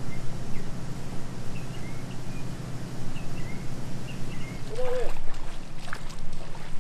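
Steady outdoor hum with small birds chirping every second or so, and one louder, wavering call about five seconds in. Near the end come sharp splashes and knocks of rubber boots wading through shallow floodwater.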